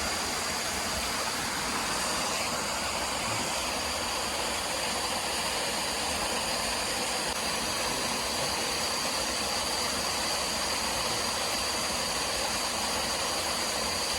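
Steady rush of flowing river water, even and unbroken, with a thin high steady tone running over it.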